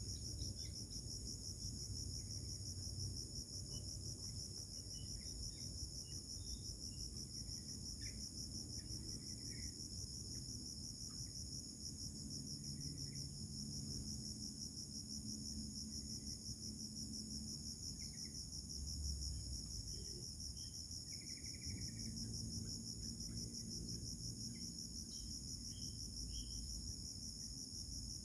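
Insects trilling in a steady, finely pulsed high-pitched chorus, with a low rumble underneath and a few faint short chirps.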